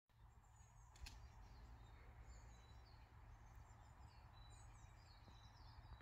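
Very faint outdoor ambience: birds chirping in the distance over a steady low rumble, with a single click about a second in.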